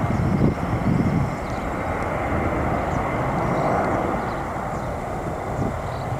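Airbus A319 jet airliner's engines rumbling steadily as it climbs away after take-off, slowly fading.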